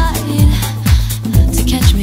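Background music with a steady kick drum about twice a second and a bass line; a sung phrase ends right at the start.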